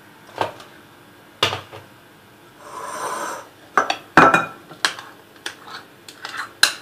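A utensil knocking and scraping against a mixing bowl while the cheesecake filling is folded together with whipped cream: a string of sharp, irregular knocks, with a brief scraping rush about three seconds in.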